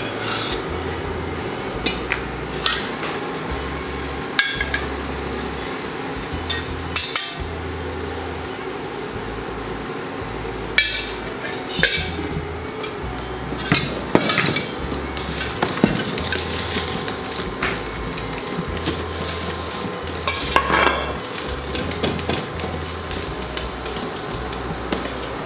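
Pots, pans and utensils being handled, with sharp knocks and clinks every second or few seconds over a steady background hiss.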